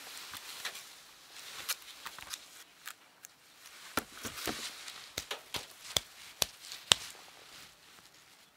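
Hands handling a shrink-wrapped CD case and clear plastic packaging on a cardboard box: soft crinkling and rustling, then from about four seconds in a run of sharp clicks and taps, the sharpest near the seven-second mark.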